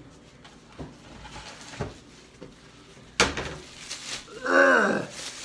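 A couple of light clinks of cans and glass on a table, then a sharp, loud sniff at a cup of canned seafood about three seconds in, followed by a man's short vocal exclamation that falls in pitch, the loudest sound.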